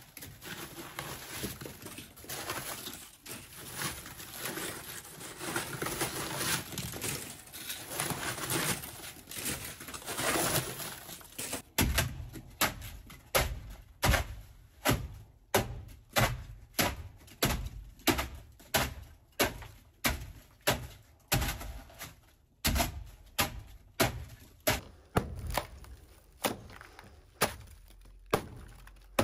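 Boat flotation foam being dug and hacked out of a fibreglass hull by hand: dense crunching and scraping for about the first dozen seconds, then steady chopping strikes about one and a half a second.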